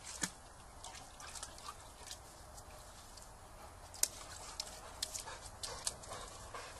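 Boxer dog working its muzzle and paw in the water of a stone trough after a toy: scattered sharp splashes and scrapes, the sharpest about four seconds in.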